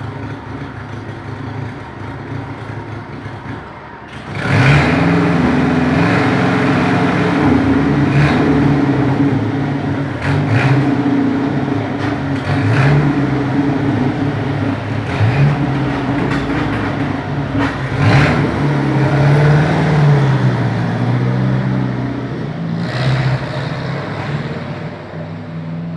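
Chevrolet Opala Diplomata four-cylinder engine rumbling at idle. It gets much louder about four and a half seconds in, and its pitch wavers a little as it runs.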